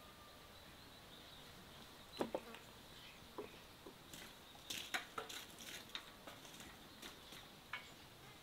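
Scattered light clicks and knocks from hands working the hanging chicken-roasting rig, starting about two seconds in and bunching together around the middle, over a faint steady background with a thin high tone.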